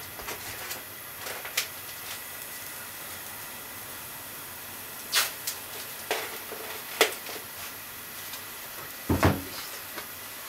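Kitchen handling noises: a few sharp clicks and knocks spread through, the loudest a dull thump near the end, over a steady faint hiss.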